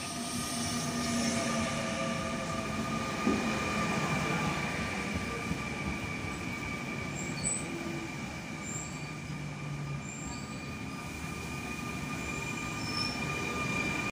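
Double-deck SNCF commuter train pulling in along the platform: a steady rumble of wheels on rail, louder over the first couple of seconds as it nears, with a steady high-pitched squeal.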